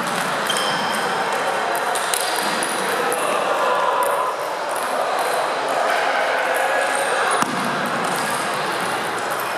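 Table tennis balls clicking off paddles and tables in rallies, sharp light pings again and again, over a steady murmur of voices in a sports hall.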